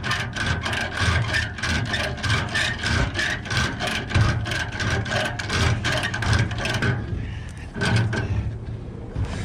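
Ratchet tie-down strap being cranked tight, a rapid run of rasping clicks at about four to five a second that stops about seven seconds in and comes back briefly a second later. A vehicle engine runs steadily underneath.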